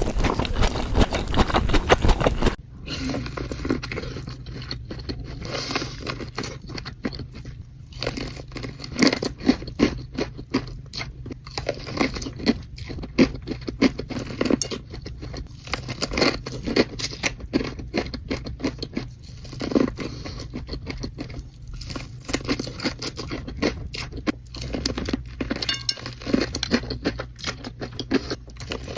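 Close-miked biting and chewing of corn: a dense, loud stretch of crunching for the first two or three seconds, then a long run of short, irregular crunchy chews over a faint steady low hum.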